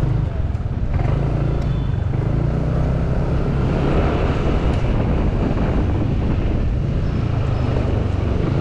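Motorcycle running at a steady cruise on the road: a constant low engine drone under even road and wind noise.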